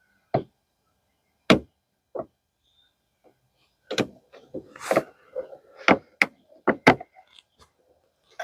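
A series of sharp knocks and clunks at uneven intervals, about a dozen, from parts of a car's wiper motor assembly being handled and worked on. They come closer together from about halfway through.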